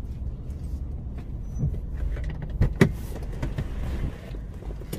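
Steady low rumble of a car's engine and road noise heard from inside the cabin in slow, stop-start traffic, with a sharp click a little past halfway.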